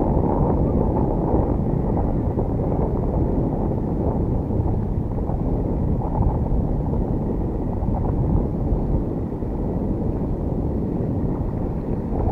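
Strong wind buffeting the microphone: a steady low rumbling noise with no break.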